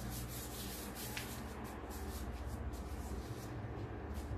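Gloved hands rolling and pressing soft cookie dough, making irregular soft rubbing and rustling sounds with a small tick about a second in, over a steady low hum.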